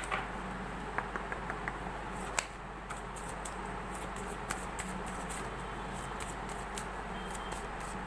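Tarot cards handled and shuffled by hand: a few sharp clicks and a quick run of small ticks in the first few seconds, then faint scattered card ticks over a steady hiss and low hum.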